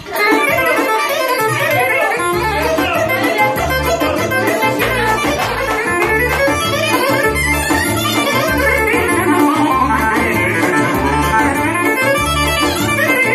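Instrumental kyuchek dance music: a busy lead melody over a steady, evenly pulsing bass beat.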